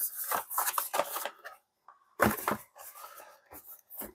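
Cardboard and plastic disc packaging being handled on a tabletop: rustling, scraping and light knocks, with a short pause about halfway through.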